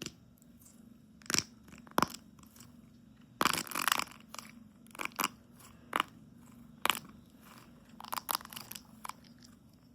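Brittle wax ball shell cracking and crunching as it is squeezed and broken apart, in irregular sharp cracks with a longer crackling burst about three and a half seconds in.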